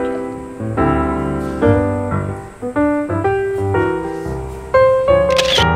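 Background piano music, a run of bright notes and chords, with a short sharp noise near the end.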